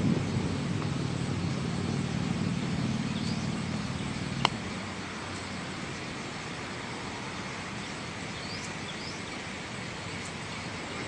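Steady outdoor wind noise with a low hum underneath that stops at a sharp click about four and a half seconds in; a few faint high chirps come later.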